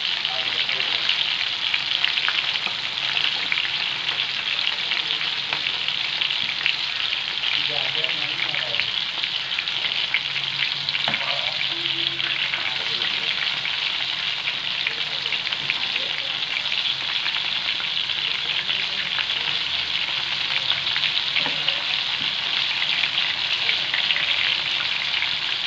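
Marinated prawns deep-frying in hot oil in a wok, with a steady dense crackle and sizzle. A perforated metal spatula stirs through them, knocking faintly on the pan a few times.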